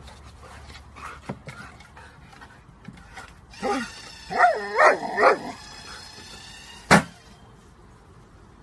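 Dog giving a few short, excited whines and yips, rising and falling in pitch, followed about seven seconds in by one sharp thump as an automatic ball launcher fires the ball.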